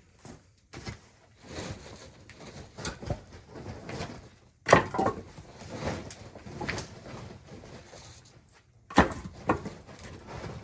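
Oak firewood logs knocking and clattering as they are handled, in irregular knocks with two loud sharp ones about halfway through and near the end.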